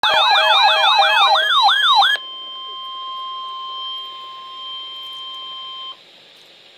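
Emergency alert tones: for about two seconds several overlapping siren-like sweeping wails, then a steady single high-pitched alarm tone near 1 kHz, the weather radio warning alarm tone, which cuts off suddenly about six seconds in.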